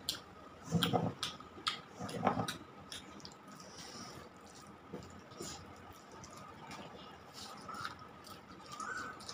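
Wet chewing and mouth sounds, loudest twice in the first few seconds. Then fingers mixing rice with shahi paneer gravy on a steel plate, with soft squishes and small clicks.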